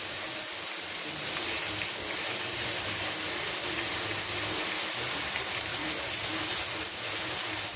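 Sliced onions and garlic paste sizzling steadily in hot oil in a wok while being stirred with a silicone spatula; the garlic is frying to lose its raw smell.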